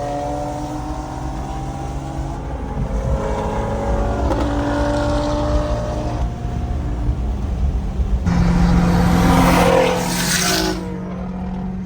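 Single-turbo Infiniti G35 coupe's V6 engine running, its pitch falling and then rising as the revs change. About eight seconds in comes a louder rushing surge that lasts about two seconds.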